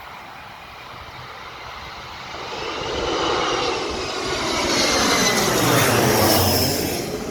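Fuji Dream Airlines Embraer regional jet on landing approach passing close overhead: its turbofan engines' roar and high whine swell up, are loudest about six seconds in, then begin to fade.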